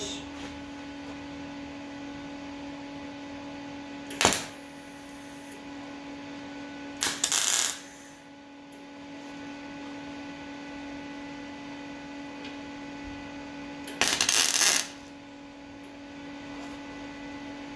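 MIG welder tack-welding a steel sheet-metal patch panel: three short bursts of welding, about four, seven and fourteen seconds in, the last two about a second each, over a steady electrical hum. The tacks are laid with the shielding gas still turned off.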